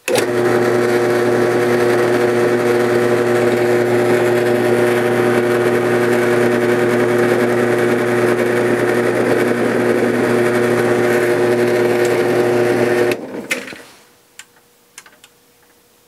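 Benchtop drill press motor running at a steady speed for about thirteen seconds, spinning a 12-gauge roll crimper head pressed down onto a shotshell hull to form a roll crimp. It is switched off near the end and winds down, followed by a few light clicks.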